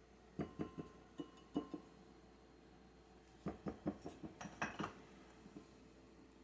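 A metal spoon clinking and tapping against a kitchen container while adding seasonings to a mayonnaise mix: two quick runs of light taps, some with a short ring, the second run about three seconds in.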